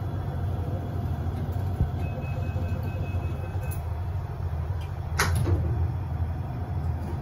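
OTIS Gen2 traction lift: a steady low hum from the car, with a thin high tone held for under two seconds about two seconds in, and a sharp click about five seconds in.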